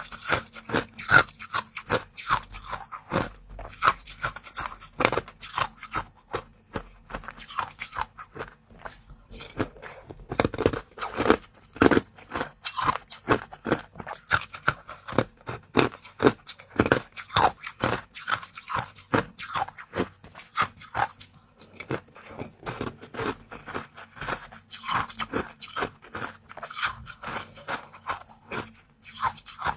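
Close-up crunching and chewing: crisp bites in quick succession with short pauses between mouthfuls.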